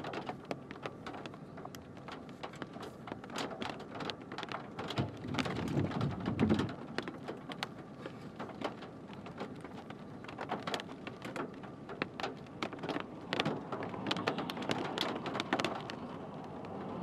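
Rain drops striking a vehicle's windshield and roof in scattered sharp ticks over a steady hiss, with a louder low rumble around five to six seconds in.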